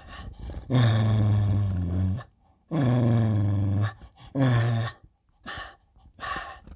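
Spaniel making low, drawn-out grumbling growls: three long ones, each shorter than the last, then two short, fainter ones near the end.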